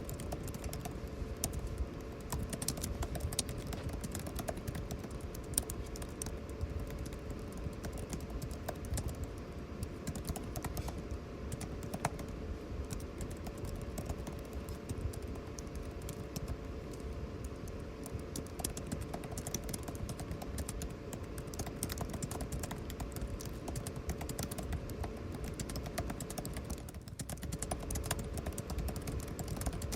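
Continuous typing on a computer keyboard, rapid irregular key clicks, over a steady air-conditioning hum. The typing pauses briefly near the end.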